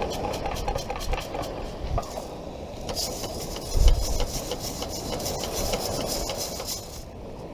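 Long-handled perforated metal sand scoop (CKG) digging into beach sand with scraping crunches. It is then shaken, and sand and bits of shell hiss and rattle through the holes of the basket, with one dull thump about four seconds in.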